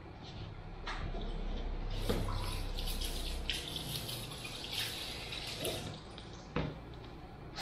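Water running and splashing into a salon shampoo basin as a face sponge is rinsed in it, with a short knock near the end.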